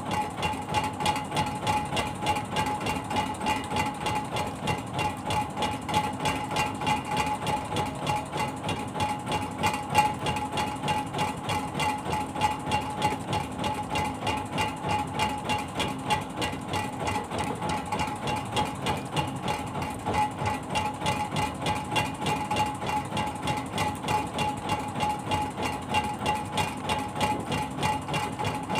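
A fishing boat's engine running steadily, with an even, rapid beat that does not change.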